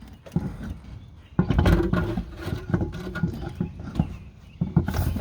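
Irregular clunks and scraping of a car wheel being handled and fitted onto the hub, with a heavy thud about a second and a half in.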